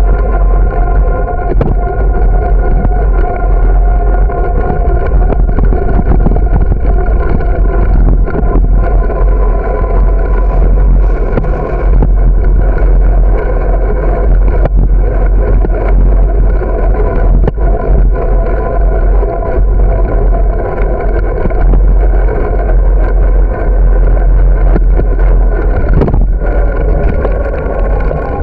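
Bicycle riding along a paved path, heard from a camera mounted on the bike: a loud, steady rumble and drone of wind and rolling vibration, with scattered brief knocks from bumps in the pavement.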